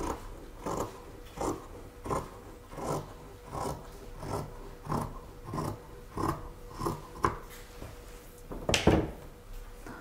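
Scissors cutting, one snip about every 0.7 s, as the darts are cut away from a dress mock-up; a louder snip near the end.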